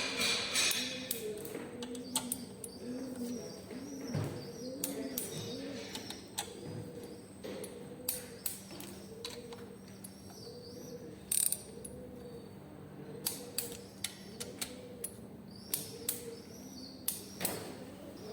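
Hand tools working on the engine: scattered sharp metallic clicks and clinks, some ratchet-like, as bolts are fitted and tightened. Behind them runs a steady, repeating low warble.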